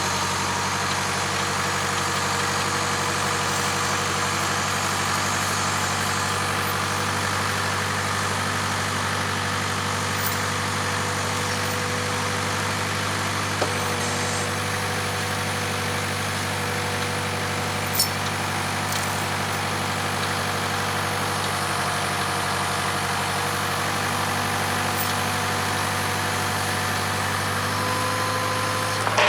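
Case 580K backhoe's diesel engine running at a steady speed, with two brief knocks about 13 and 18 seconds in.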